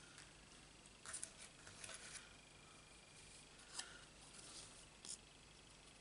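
Near silence broken by faint rustles and a few light clicks as small paper cutouts and a plastic liquid-glue bottle are handled on a craft mat. A faint steady high whine runs behind for the first half.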